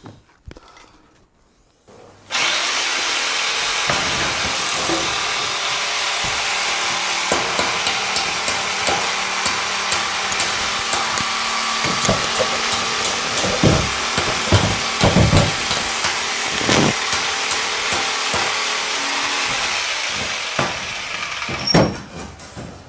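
A steady mechanical whir that starts suddenly about two seconds in and fades out near the end, with several knocks about halfway through.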